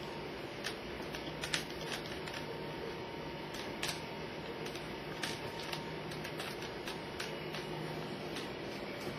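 Scattered light clicks and knocks of small items and plastic drawers being handled by a toddler, over a steady background hiss.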